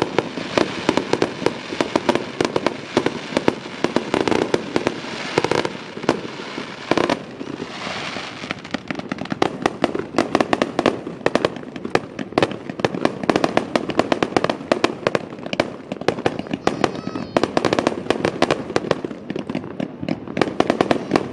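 Fireworks display: a rapid, continuous barrage of bangs and crackling pops from bursting aerial shells and crackling stars, thinning briefly about a third of the way in before building again.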